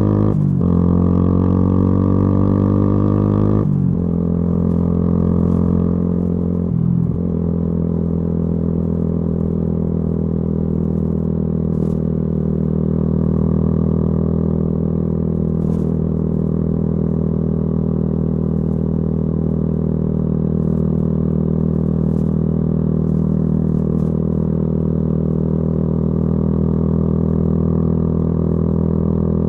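Yamaha YZF-R125's single-cylinder four-stroke engine through a modified exhaust, under way: the revs climb and drop back at quick upshifts about half a second in, near four seconds and near seven seconds, then settle into a steady cruise.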